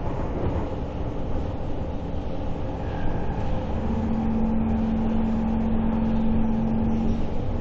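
Kawasaki Heavy Industries C151 metro train running, heard inside the car: a steady rumble of wheels and running gear. A steady hum joins it about four seconds in and stops about three seconds later.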